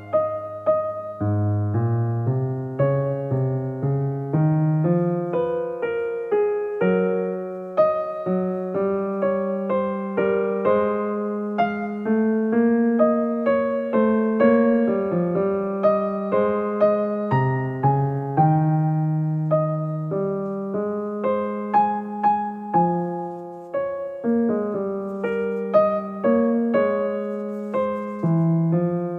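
Background music: a solo piano piece, a steady stream of struck notes with a melody over sustained lower notes.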